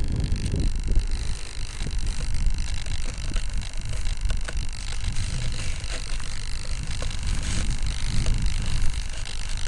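Wind buffeting a small MD80 spy camera's microphone, a loud low rumble that swells and dips in gusts.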